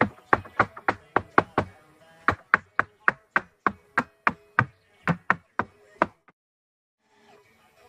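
Rapid, evenly spaced hammer blows, about four a second, in two runs with a short pause between, stopping abruptly near the end; faint background music underneath.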